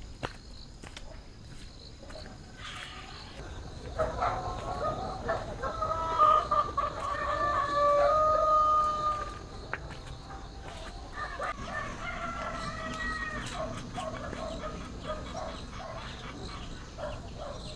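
Rooster crowing: a long crow from about four to nine and a half seconds in, then a second, shorter crow around eleven to thirteen seconds.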